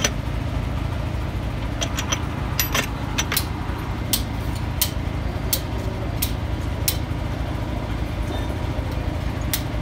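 A steady low rumble of vehicle engines runs throughout. Over it come a series of sharp metallic clicks, about one every 0.7 s through the middle of the stretch and once more near the end, from hand work on a heavy truck differential's carrier and ring gear.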